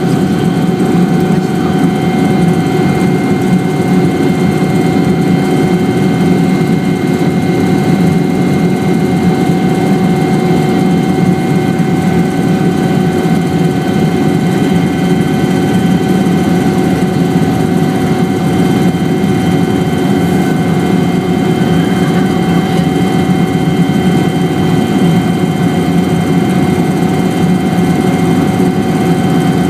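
Helicopter in flight: a steady drone of engine and rotor with a constant high whine on top, unchanging throughout.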